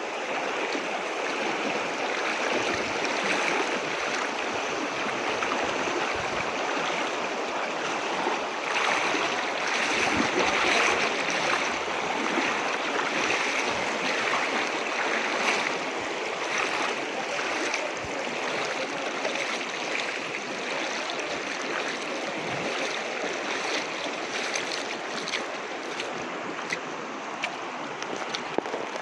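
River water rushing steadily, with scattered short clicks over the continuous rush.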